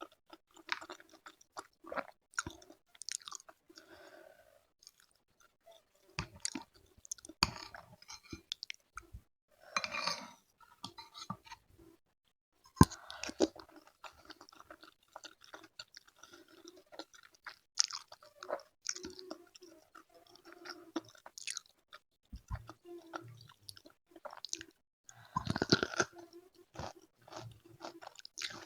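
A person chewing and crunching food close to the microphone in irregular mouthfuls, with louder crunchy bursts about ten seconds in and again near the end.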